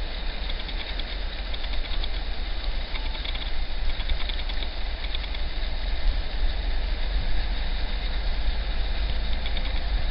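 Class 56 diesel-electric locomotive running light engine, approaching from a distance: a steady, low engine rumble with faint intermittent ticking higher up.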